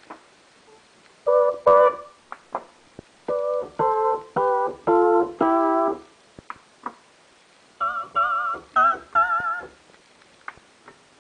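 Yamaha DX7s FM synthesizer playing short notes and chords on preset voices. Two quick notes come first, then a run of four notes stepping down in pitch, and after a short gap a few notes with a strong wavering vibrato. Faint clicks of keys and buttons fall in the gaps. It is heard through a camera's built-in microphone.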